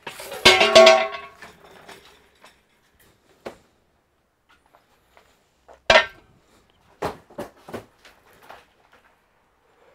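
Hard objects clattering briefly about half a second in, then a sharp knock near the middle and a few lighter clicks.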